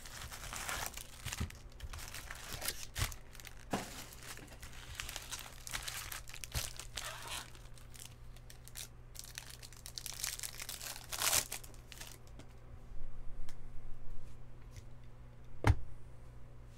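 Baseball card packs being opened by hand: wrappers tearing and crinkling in irregular bursts, with the rustle of cardboard and cards being handled and one sharp knock near the end.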